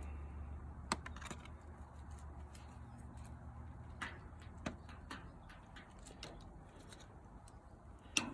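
Faint, scattered clicks and taps of small parts being handled by hand, the sharpest one near the end. A low hum underlies the first few seconds and then fades.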